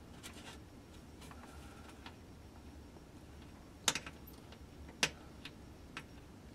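Small metal tool scraping and tapping against a soldering iron tip to clear off solder: scattered light clicks and scrapes, with two sharper clicks about a second apart past the middle.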